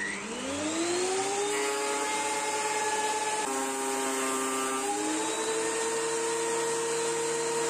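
Benchtop thickness planer's motor spinning up with a rising whine, then running steadily. About three and a half seconds in its pitch drops as it cuts into an oak board, and it rises again about a second and a half later.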